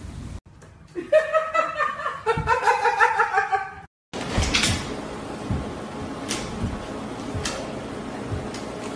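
High-pitched laughter for about three seconds. After a sudden cut, a few sharp taps and light slaps come from a cat and a dog pawing at each other on a stone countertop, over low room hum.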